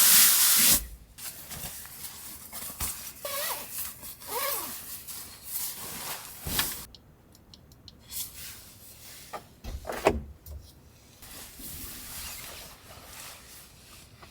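A loud rushing hiss for about a second, then rubbing, rustling and small squeaks and knocks of things being handled, with a sharp knock about ten seconds in.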